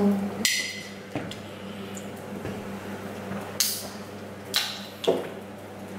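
Close-miked eating sounds of a person eating fast food: chewing and mouth noises with a few short, crisp sounds, the loudest about half a second in. A steady low hum runs underneath.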